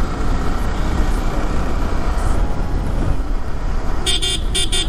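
Wind and road noise of a Yamaha R15 V3 motorcycle riding along, a steady low rush on the microphone. Near the end a vehicle horn toots three short times.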